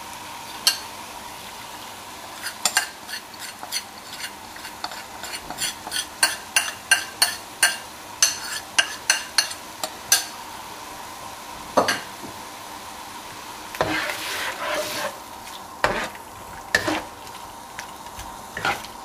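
Plastic spatula scraping and tapping against a non-stick wok in quick strokes as prawns are stirred and tossed, over a steady sizzle of frying. A louder hiss rises for a second or two about three-quarters through as the sauce cooks in the hot wok.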